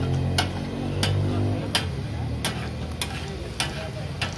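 Metal spatula scraping and clanking against a large iron tawa griddle as chicken is stirred in sizzling oil, with sharp clinks about every two-thirds of a second: the rhythmic 'taka tak' of the spatula.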